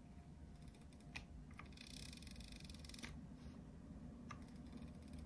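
Faint, scattered clicks of fingers pressing the pads and buttons of a Polyend Tracker, about four in all, over a low steady hum.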